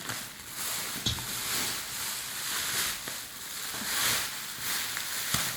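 Soft rustling and crinkling of a handbag's packaging wrap as it is handled and unwrapped, with a couple of light knocks.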